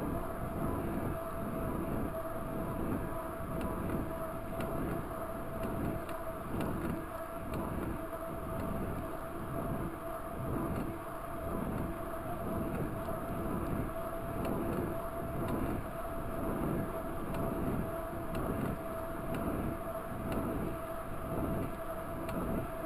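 Wind rushing over the camera microphone and a mountain bike's 29-inch tyres rolling on asphalt, a steady noise with a faint even hum and a low rhythmic pulsing about one to two times a second.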